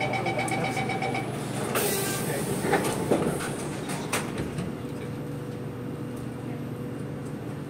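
Train door-closing warning beeps for about a second, then a burst of air hiss about two seconds in and several knocks as the doors shut. A steady hum of the stopped train follows.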